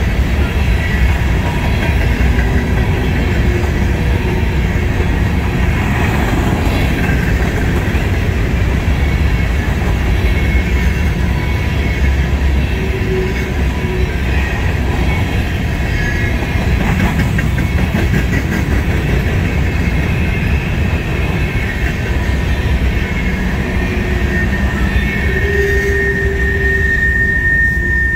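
Covered hopper cars of a Norfolk Southern grain train rolling past: a steady rumble of wheels on rail. High squealing tones come and go, with a longer, louder squeal near the end.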